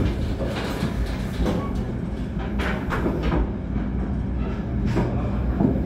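Running noise of a moving passenger train coach, heard from on board: a steady low rumble from the wheels and bogies with several scattered knocks and clicks.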